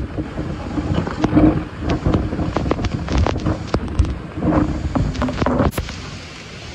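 Violent microburst wind gusting hard and buffeting the microphone, with many sharp hits of large hail. The wind eases a little near the end.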